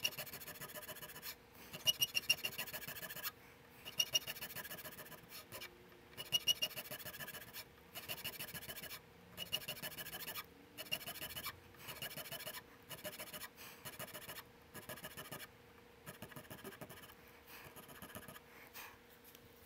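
Hand checkering tool cutting lines into a 1911 grip panel, stroke after stroke: a scratchy rasp about a second long, repeated with short pauses, some strokes starting with a few sharp ticks.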